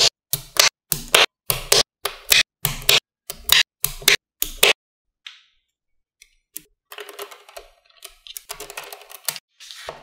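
Small neodymium magnetic balls clicking together one at a time, sharp clicks about two or three a second, then a denser rattling clatter of balls about two-thirds of the way in.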